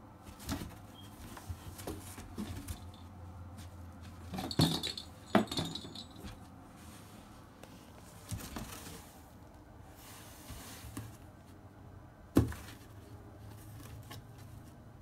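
Kittens scrambling in a cardboard box and pawing at it: light scratches and scuffs on the cardboard, with a few sharper knocks and bumps, two close together near the middle and a louder one later. A faint low hum runs underneath.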